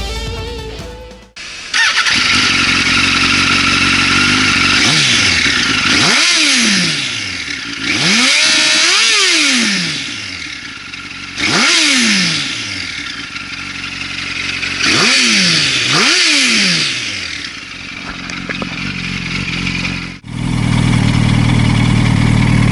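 Yamaha YZF-R1 inline-four with an Arrow exhaust being revved in repeated sharp blips, the pitch climbing quickly and falling back each time. After a cut near the end it settles into a steady idle. The tail of guitar music fades out in the first second.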